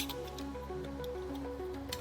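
Background music with a melody of short held notes over a steady low bass. A sharp click sounds right at the start and a lighter one near the end.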